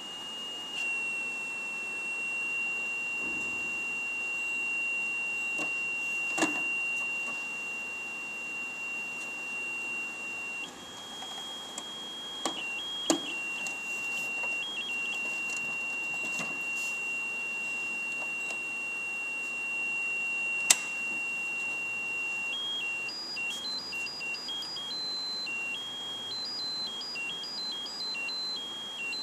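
1972 Triadex Muse digital tone generator sounding one high, steady beep-like tone for about ten seconds. It steps up a note briefly, drops back, and near the end breaks into a fast stepping sequence of high notes. A few sharp clicks cut through, the loudest about two-thirds of the way in.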